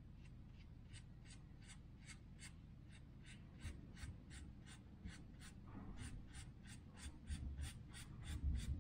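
Paintbrush stroking oil onto a sanded wooden beam: faint, even brushing strokes about three a second.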